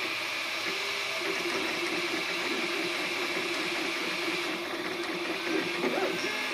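FDM 3D printer printing, its stepper motors whining in short tones that keep shifting in pitch as the print head traces each layer, over a steady fan hiss.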